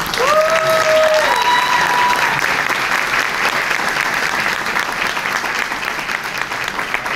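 Audience applauding, loud at first and slowly fading, with a couple of high held cheers in the first two seconds.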